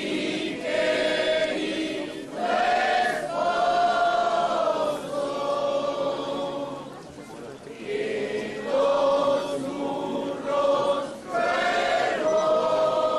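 Many voices singing a religious hymn together in long held notes, phrase by phrase, with short breaks between phrases.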